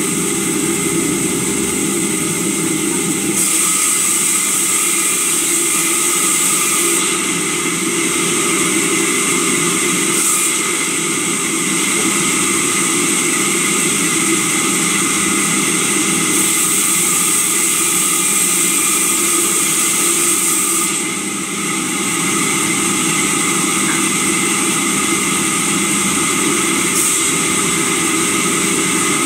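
Sawmill saw running loudly and steadily with a constant hum, the hissing of the cut brightening and dropping every few seconds as timber is fed through the blade.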